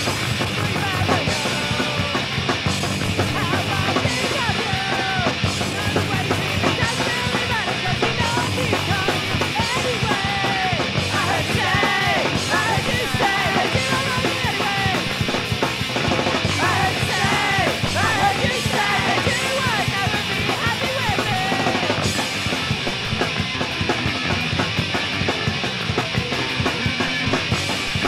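Punk rock song played by a three-piece band on electric guitar, bass guitar and drums, with a lead vocal through most of it that drops out for the last several seconds.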